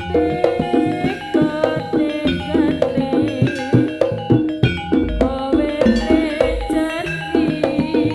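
Jaranan ensemble music: quick hand-drum and struck percussion beats under a wavering pitched melody line.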